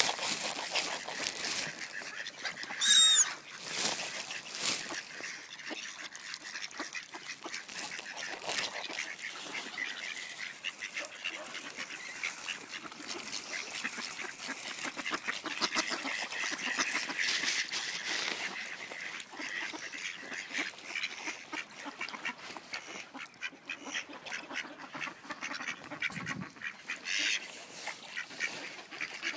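Mallard ducks quacking and calling close by, over and over, while they are being fed. About three seconds in comes one loud, wavering high-pitched call.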